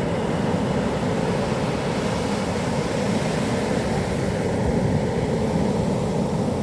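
Large typhoon-driven waves breaking on a beach: a steady, dense rush of surf with no distinct breaks.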